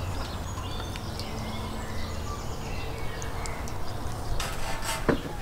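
Small birds chirping in short, scattered calls over a steady low rumble, with a brief hiss and a sharp click near the end.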